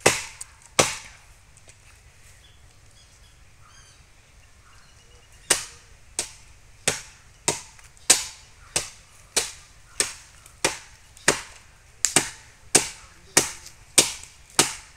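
Hand blade chopping into a palm tree's top: two sharp strokes, a pause of a few seconds, then a steady run of chops about one and a half a second.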